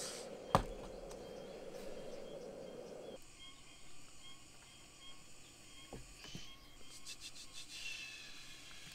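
A steady low rushing noise with a single sharp click about half a second in; the rushing stops abruptly about three seconds in. After it, faint insect song remains: a steady high tone with short repeating chirps, and a couple of soft knocks.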